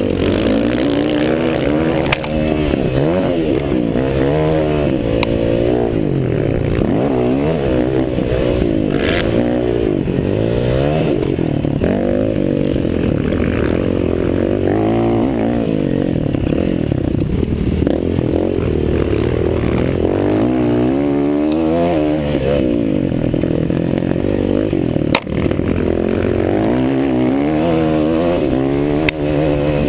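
Several motocross bikes racing, their engines revving up and down through the gears and overlapping one another, with no let-up.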